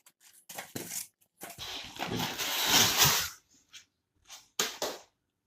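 Cardboard and plastic packaging being handled and torn open: a few short scraping, crinkling noises and one longer tearing noise about a second and a half in that lasts nearly two seconds.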